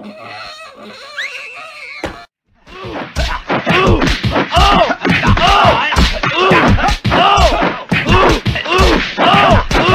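A cartoon beating heard in the dark: after a short silence, loud thumps repeat about two a second, each with a pained cry that rises and falls in pitch. A quieter, muffled voice-like sound comes before the silence.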